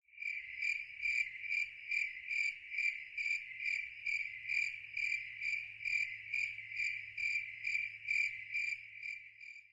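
A cricket chirping in an even rhythm, about two to three chirps a second, on one high trill.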